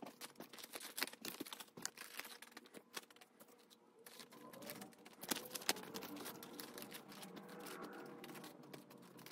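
Paper dollar bills being handled and thumbed through by hand while counted, giving a faint run of quick, irregular crisp ticks and rustles.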